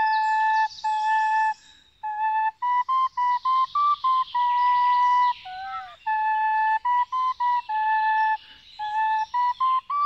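Slow flute melody of clear held notes with a short downward slide near the middle, with faint birdsong chirping higher up.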